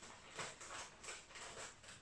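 Epson EcoTank L3156 inkjet printer's mechanism working: a faint, quick series of short mechanical sounds, about three a second.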